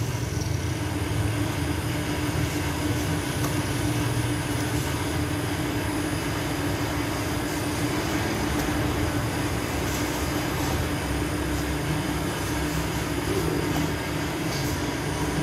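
Large round bakery oven running: a steady low rumble with a constant hum, unchanged throughout, with a few faint ticks.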